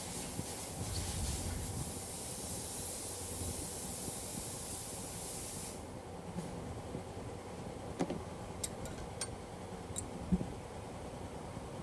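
A steady hiss that cuts off suddenly about six seconds in, followed by several light clicks and a knock.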